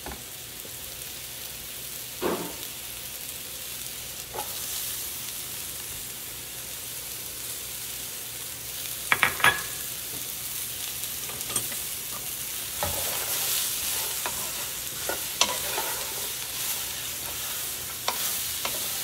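Sliced mushrooms and diced shallots sizzling steadily in hot olive oil in a skillet, while a utensil stirs them with scattered knocks and scrapes against the pan. Two louder knocks come about nine seconds in.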